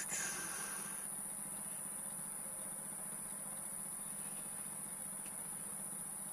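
Steady background sound: a constant high-pitched hiss with a low hum underneath.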